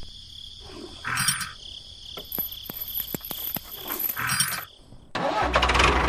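A run of sharp clicks and a couple of short rattles, then about five seconds in a DIY mini tractor's small motor switches on and runs steadily with a low hum.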